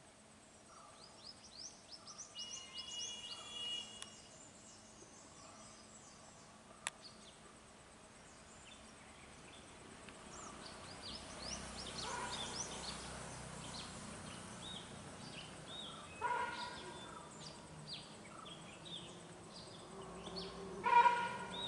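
Small birds chirping in the background: many short, high chirps scattered through, with a louder pitched call about three-quarters of the way in and a louder one still near the end.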